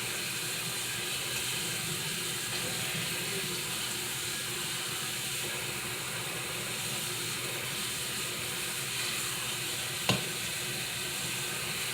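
Tap water running steadily into a cooking pot, filling it up to the top over the seasoned chicken. A single short knock sounds about ten seconds in.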